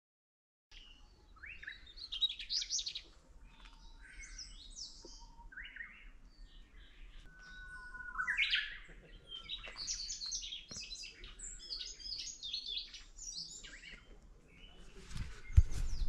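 Several wild birds singing and calling at once: a busy mix of chirps, short whistles and twittering phrases. A low rumble builds near the end.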